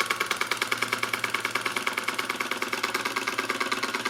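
KJ Miller toy beam steam engine running fast on a full head of steam, its loose-fitting mechanism clattering in a quick, even beat of several strokes a second.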